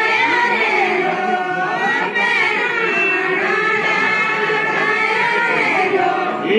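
A group of voices singing a Kumaoni jhoda-chanchari folk song together, a sustained, wavering melody.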